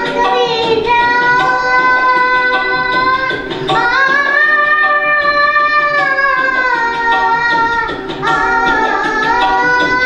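A young girl singing a melody into a microphone, holding long notes, the longest from about four to six seconds in.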